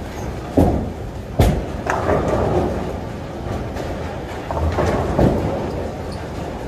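Bowling alley din: a steady rumble of bowling balls rolling down the lanes, broken by several sharp clatters of balls striking pins, the loudest about a second and a half in.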